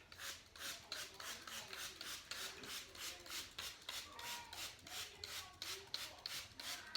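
A trigger spray bottle squeezed over and over along an airsoft rifle: a quick, faint run of short hissing sprays, about four a second.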